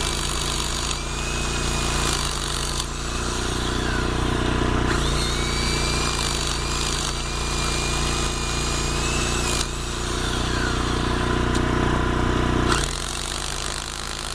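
Rotary hammer drill boring a 25 mm hole into a concrete road surface, a loud steady hammering buzz that stops suddenly about 13 seconds in.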